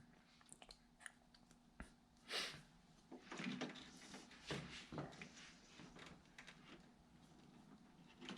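Faint clicks and soft scraping of wire strippers on electrical wires, as the insulation is stripped back.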